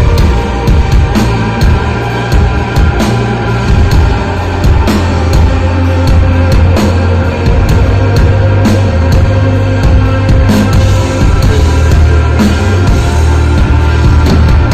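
Loud live desert rock with no singing: a band of electric guitar, bass and drum kit plays a steady instrumental passage. A heavy bass line sits under held guitar tones, with regular drum and cymbal hits throughout.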